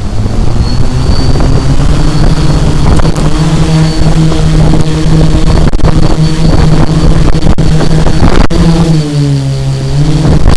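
A homemade tricopter's three Emax XA2212 980 kV brushless motors and propellers running loud and steady, heard from its onboard camera, with a thin high whine above the drone. There are a few sharp clicks in the middle, and the motor pitch dips briefly near the end, then rises again.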